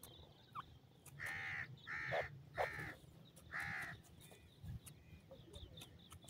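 A bird gives four harsh calls in quick succession, each about half a second long, all within the first four seconds.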